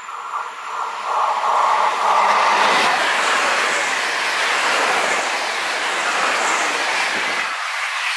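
Regional passenger train passing at speed close by: a tone from the rails as it approaches, then a loud rush of wheels on rail, with the low rumble cutting off abruptly near the end as the last car goes by, leaving a fading hiss.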